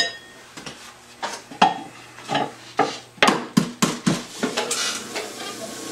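A potter's bat knocked and tapped against the wheel head as it is handled and set down: a quick run of a dozen or so sharp knocks, then a steady soft hiss near the end.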